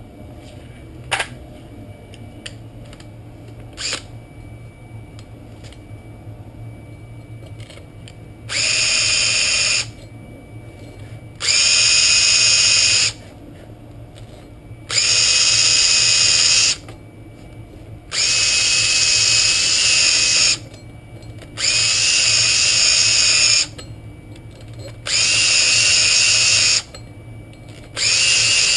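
Power drill spinning a brush attachment against the bare rear wheel hub face, scrubbing the hub, in about seven bursts of one to two and a half seconds with short pauses between. The bursts start about eight seconds in, after a couple of sharp clicks of tools being handled.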